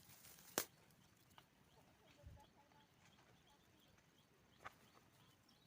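Near silence broken by a few handling sounds: a sharp click about half a second in, a soft low thump around two seconds, and a fainter click near five seconds.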